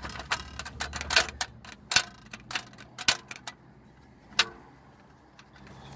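A quick, uneven run of sharp clicks and short sprays, most of them in the first three and a half seconds and one more a little after four: WD-40 being sprayed onto the rear seatback latch and lock of a VAZ-2114, which squeaked because the latch was loose and dry.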